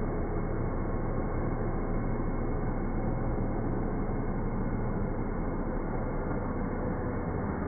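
Hyundai Solaris sedan's engine held at steady revs during a front-wheel burnout, the drive wheels spinning against the road. The drone is even throughout with no change in pitch.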